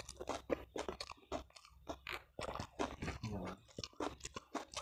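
Close-up chewing and crunching of food eaten by hand, a rapid irregular crackle of bites and mouth sounds, with a short low hum about three seconds in.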